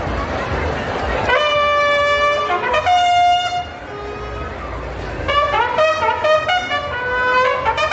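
Brass horns of a school marching band playing a call: two held notes, then a quick run of short notes from about halfway through.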